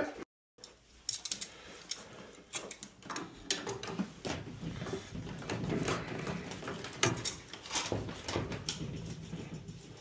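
Scattered metal clicks, knocks and scrapes of a hand wrench working on a boiler's relief-valve fitting and drip-leg pipe.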